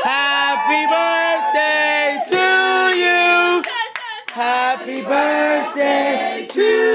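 A group of voices singing together in held notes that change about every half second, with a short break a little past halfway, and some hand clapping.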